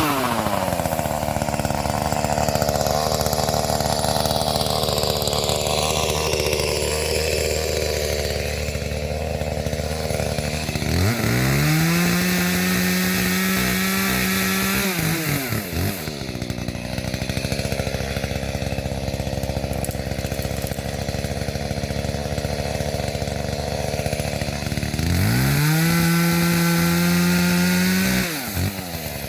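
Small Echo two-stroke chainsaw idling, revved to full throttle and held for a few seconds twice: about a third of the way in and again near the end.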